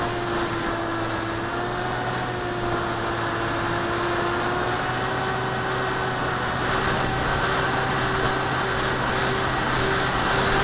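RC plane's motor and propeller running steadily in flight, heard from on board, with a slightly wavering pitch over a constant rush of wind. The wind noise grows a little louder about seven seconds in.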